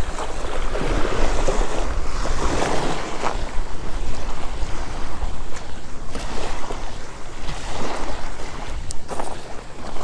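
Wind buffeting the camera microphone with a steady low rumble, over small waves washing onto the beach.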